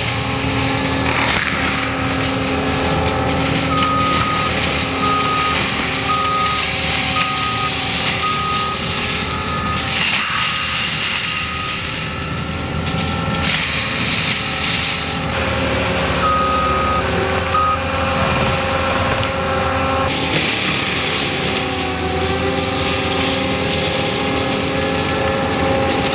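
ASV 135 compact track loader with forestry mulcher running under steady power, its engine note shifting a couple of times. Its backup alarm beeps about once a second for several seconds as the machine reverses, then twice more later.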